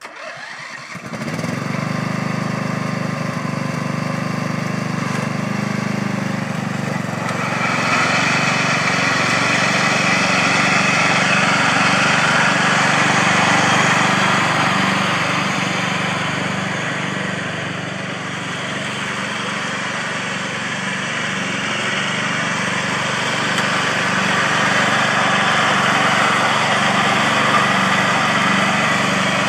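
Simplicity front-deck riding mower's engine running steadily as the mower drives over grass. About seven seconds in, a brighter whirring hiss joins and stays.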